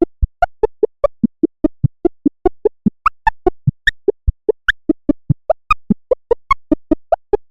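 Electronic synthesizer sequence of short, rapid blip notes, about five a second, each with a low thud beneath it, the pitch jumping up and down from note to note.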